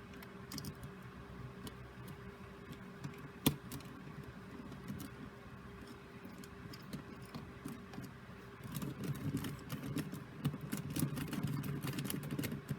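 Small plastic clicks and rattles of Rubik's cube pieces being handled and pressed back into place during reassembly, with one sharp click about three and a half seconds in and a denser run of clicking from about nine seconds on.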